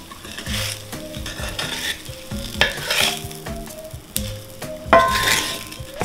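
Egg and diced potatoes sizzling in a cast-iron skillet while a wooden spatula scrapes and stirs through the pan in a few separate strokes. A sharp knock comes about five seconds in.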